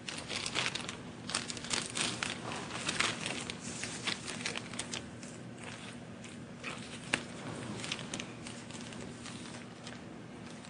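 Soft rustling and crinkling with scattered sharp clicks, busiest in the first half and thinning out later, over a faint steady hum.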